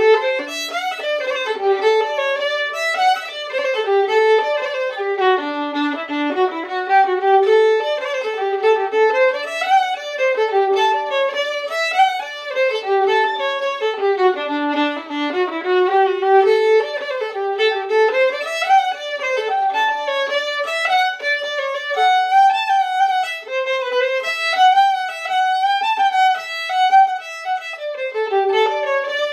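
Solo fiddle playing a folk dance tune in quick running notes, bowed without a break.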